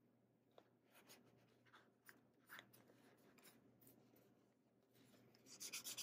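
Fingers handling a sticker on a Hobonichi planner page: a few faint paper ticks and rustles, then, from about five and a half seconds in, a quick run of rubbing strokes as the sticker is pressed and smoothed down onto the paper.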